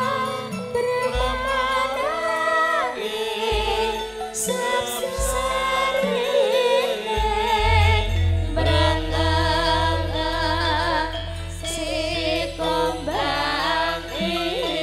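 Javanese gamelan music: a female singer sings a sliding, ornamented melody over the ensemble. Deep gong strokes sound every few seconds, and the strongest comes about halfway through and rings on with a slow wavering hum.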